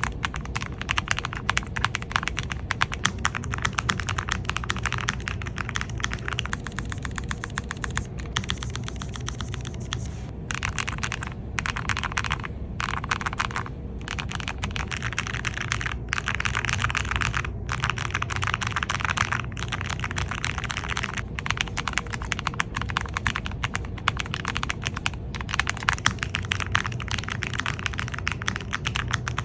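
Fast, continuous typing on an Iqunix MG75 (Magi75) low-profile mechanical keyboard: a dense stream of keystroke clacks with brief pauses now and then.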